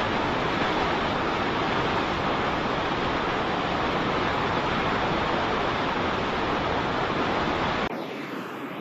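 Waterfall: a steady rush of falling water. Near the end it switches abruptly to a quieter, thinner water sound with less low rumble.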